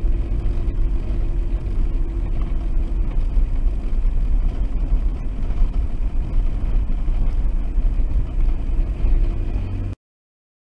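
Car driving slowly: a steady low rumble of engine and tyres on the road, heard from inside the cabin through a dashcam. It cuts off abruptly near the end.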